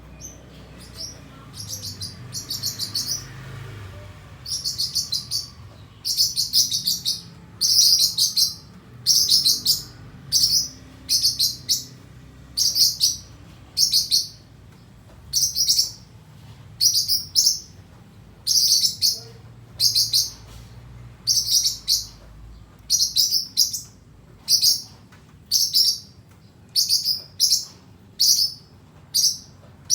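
A small pet bird chirping over and over: short, high, buzzy calls about once a second, getting louder over the first few seconds.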